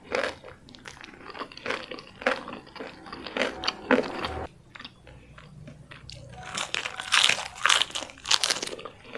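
Close-miked chewing of a mouthful of food, in a run of soft strokes. About two-thirds of the way through come loud, crisp crunches as a fresh lettuce leaf is bitten and chewed.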